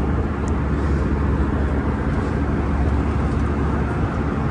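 Steady drone of engine and airflow noise inside a jet airliner's cabin at cruising altitude, a deep rumble with a hiss over it.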